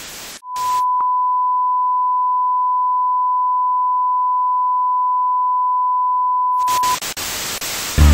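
A steady, single-pitched electronic tone around 1 kHz held for about six and a half seconds, like a reference test tone at the head of a tape or recording. Brief bursts of hiss come before it, and it gives way to crackly hiss near the end.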